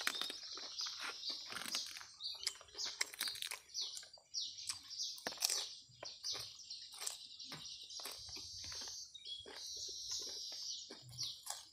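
Close-up wet chewing and lip-smacking clicks from a person eating with their hands, over birds chirping busily.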